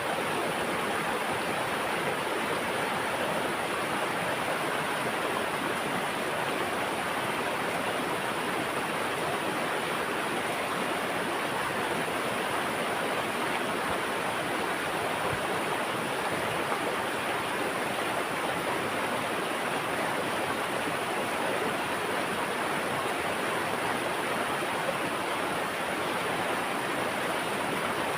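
Flowing water rushing steadily, like a stream or small waterfall, with an even, unbroken hiss and no pauses.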